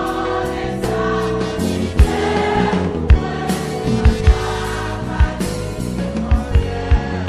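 Gospel music: a choir singing held notes over an instrumental backing, with drum hits.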